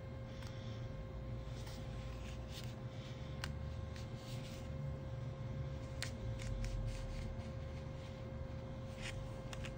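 Thin plastic opening card scraping and clicking against the edge of a Google Pixel 3's glass back, a scatter of small clicks and scrapes over a steady faint hum.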